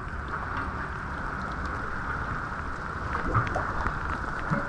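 Steady wash of sea water against the rocks of a breakwater, with a few faint clicks near the end.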